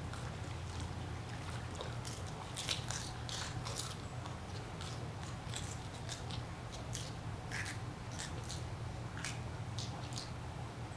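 Sea otters crunching and chewing shellfish, a run of irregular sharp cracks, over a steady low hum.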